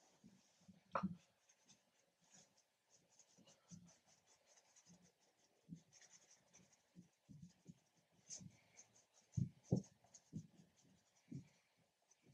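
Paintbrush strokes on a stretched canvas, dabbing and scrubbing on acrylic paint: quick soft scratchy strokes with scattered light taps, and a few louder knocks about a second in and twice about three-quarters of the way through.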